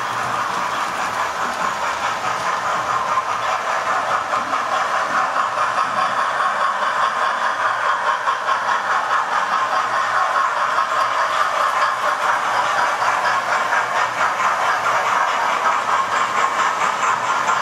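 Electric model trains running round the track: a steady whirring of small motors with a fast, fine clatter of wheels on the rails, a little louder after the first few seconds.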